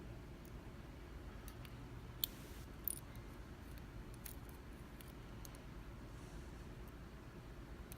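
Sparse small metallic clicks and ticks of a JMS dimple lock's pins and parts being handled as the lock is taken apart, the sharpest a little past two, about three and just past four seconds in, over a low steady hum.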